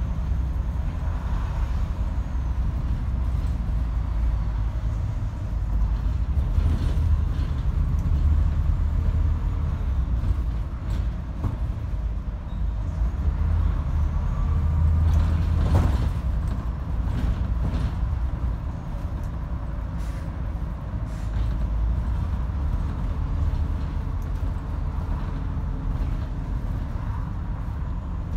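Interior running noise of a Scania OmniDekka double-decker bus heard from the upper deck: a steady low engine and road rumble with occasional rattles and clicks, a little quieter in the second half.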